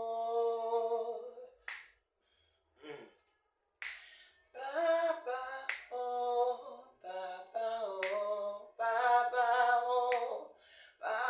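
A voice singing a slow melody in long held notes without clear words, with a finger snap about every two seconds keeping time. There are five snaps, and a brief pause in the singing about two to four seconds in.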